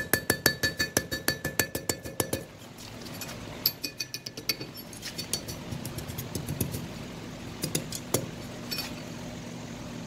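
Hand hammer striking a red-hot steel bar on an anvil, played at double speed: a quick run of blows, about five a second, with the anvil ringing, for the first two seconds or so. After a short pause come lighter, scattered blows.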